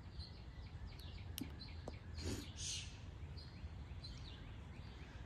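Faint outdoor background: a steady low rumble with small birds chirping now and then, and a single sharp click about a second and a half in.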